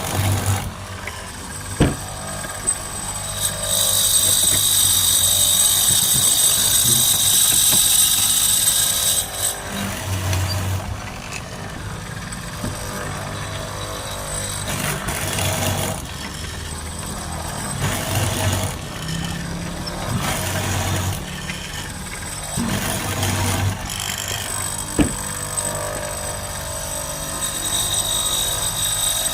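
Electric woodworking power tool running with a high whine, loudest from about four to nine seconds in and starting up again near the end, with quieter motor hum and a few knocks in between.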